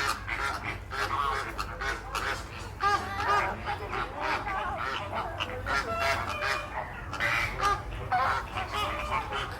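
A flock of birds calling, many short calls overlapping one another.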